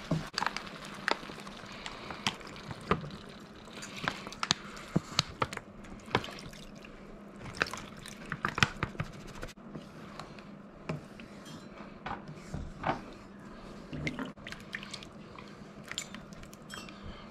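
Wooden spoon stirring and scraping a simmering mushroom gravy in a frying pan, with frequent sharp taps of the spoon against the pan. Beef stock is poured in from a carton about halfway through.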